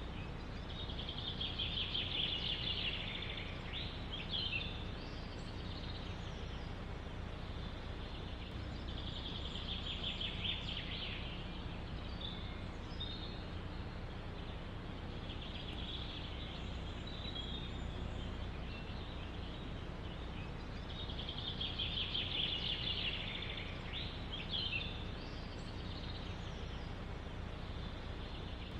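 A songbird singing the same short trilled phrase over and over, roughly every six to seven seconds, over a steady low rush of wind in the forest.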